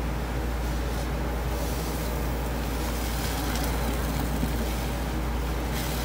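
Wet, crackly squishing of a sponge loaded with thick blue cleaning-powder paste as a gloved hand lifts and squeezes it, over a steady low rumble.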